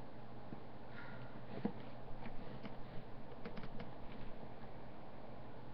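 Faint scattered clicks and light ticks over a steady low hum and hiss from the microphone.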